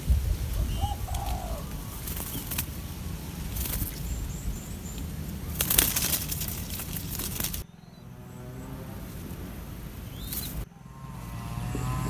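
Rustling and short wing flaps of spotted dove fledglings in their nest, with a few brief faint chirps about a second in. The sound drops suddenly about two-thirds of the way through, and a low steady hum comes in near the end.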